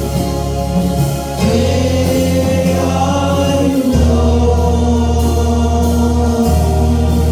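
Gospel choir singing a Christian hymn with instrumental accompaniment, sustained chords over a steady bass that shifts chord every few seconds.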